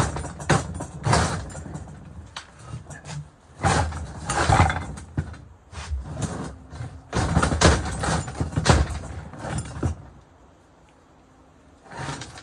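Metal knocking, clanking and scraping as the copper-wound armature of a large electric motor is worked and slid out of its steel housing. The handling goes quiet for about two seconds near the end, then there is one more short clatter.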